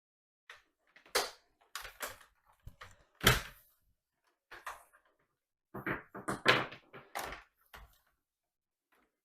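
Plastic knocks and clacks of an upright vacuum cleaner and its power cord being handled while the long cable is wrapped around the body. The sharpest knock comes about three seconds in, with a quick run of clatters between about six and seven seconds.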